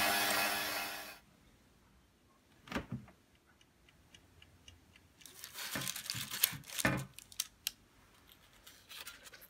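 Electric hand mixer whipping cream, running steadily and cutting off about a second in. After a quiet stretch, a run of knocks and clatters, loudest around the middle, and a few lighter clicks near the end, as a metal baking tray and dish are handled.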